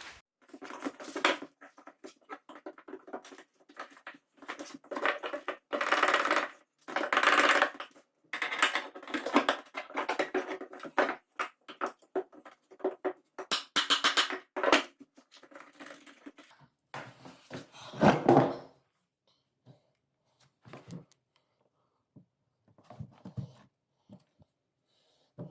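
Wooden floor creaking and squeaking again and again, a long run of rough creaks under shifting weight, then a few faint ones near the end. The squeak comes from a loose old spacer under the floor joist, which the owner thinks probably moves.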